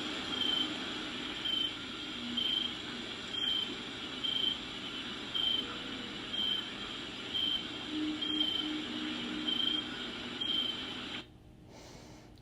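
Rainforest ambience recording: a cricket chirping about once a second, a short high note each time, over a steady hiss of rain. It cuts off about a second before the end.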